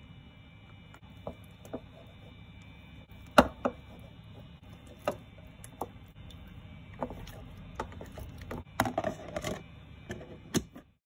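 Hand stretching and folding wet sourdough dough in a clear plastic tub: scattered soft knocks and clicks as the tub shifts on the wooden counter and the hand works the dough, with the loudest knock about a third of the way in. Near the end a plastic lid is pressed onto the tub with a few quick clicks.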